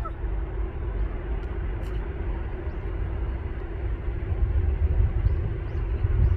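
Low outdoor rumble, growing louder in the second half, over a steady hum; a few faint short high chirps near the end.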